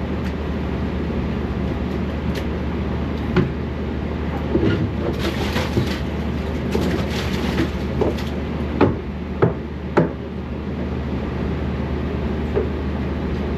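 Steady low machinery hum, with scraping and knocking as sludge is cleaned out. There is a stretch of heavier scraping about halfway through, then three sharp knocks about half a second apart.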